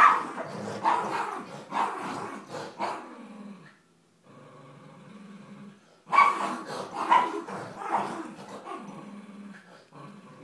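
Two dogs, a miniature pinscher and a Doberman, play-growling over a tug toy, with runs of sharp barks over the growl. There is a short lull about four seconds in, and the barking picks up again about six seconds in before tailing off.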